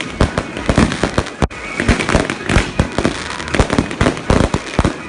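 Category 2 consumer fireworks going off in a rapid, dense series of bangs and pops, several a second.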